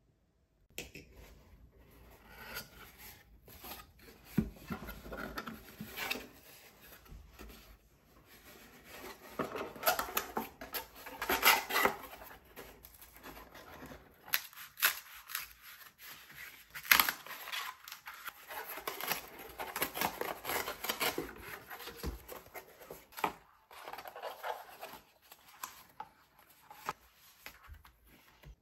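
Kraft cardboard tumbler box being pulled open and unfolded by hand. Irregular crackling and tearing as the glued flaps part, with rubbing and sliding of the board. The loudest tearing comes about ten seconds in and again a few seconds later.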